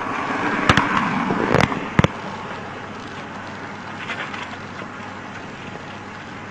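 Roadside traffic noise, fading after about two seconds, with three sharp clicks or knocks in the first two seconds.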